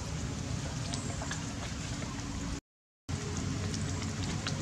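Steady outdoor background noise with a low rumble and scattered faint clicks. The sound drops out completely for about half a second midway.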